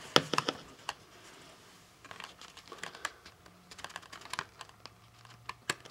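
Plastic blister packaging on a Hot Wheels card crinkling and clicking as it is handled, in scattered short clicks with a few sharper ones near the start and near the end.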